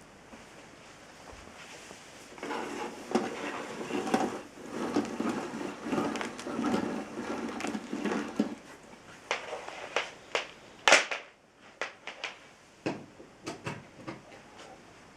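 Handling noises: a few seconds of uneven rustling and scraping, then a string of clicks and knocks, the sharpest and loudest about eleven seconds in.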